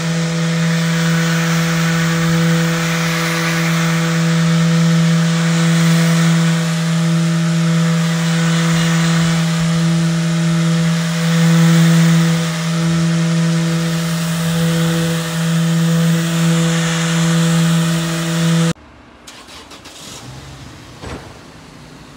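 Festool random orbital sander running steadily with its pad pressed against a boat hull: a constant hum with a hiss over it. The sound cuts off suddenly near the end, leaving only faint background noise and a few small knocks.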